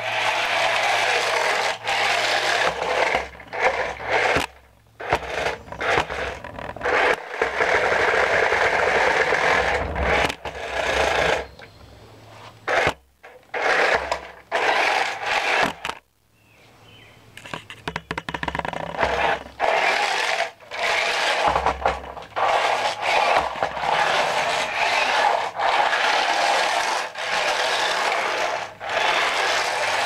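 Toy remote-control car's small electric motor and gears running as it drives over a concrete floor. It stops and starts many times, with short pauses between runs.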